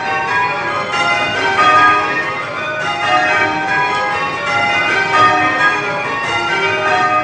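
Church bells in full-circle change ringing, rung in spliced methods: a steady, evenly spaced stream of bell strikes, each note ringing on under the next.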